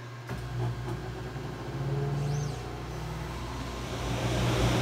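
Muse desktop CO2 laser cutter firing up: a low machine hum comes on suddenly just after the start, then a steady rushing fan and air noise swells toward the end as the job begins cutting the paper.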